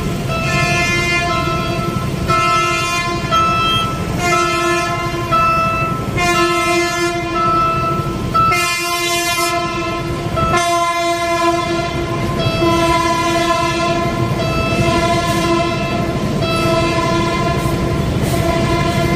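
A melody of held, horn-like notes that change pitch every half second or so, over a low rumble.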